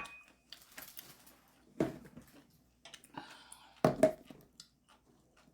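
Tableware clicking and knocking during a meal: light scattered clicks with two sharper knocks about two seconds apart.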